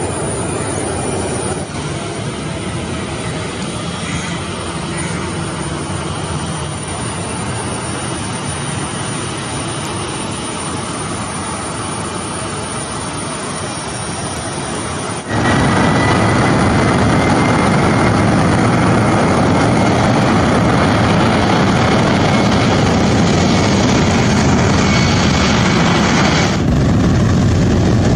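Boeing 737 jet engines running as the airliner taxis and lines up. About halfway through the engine noise jumps louder and a high whine rises, as the engines spool up for the takeoff roll.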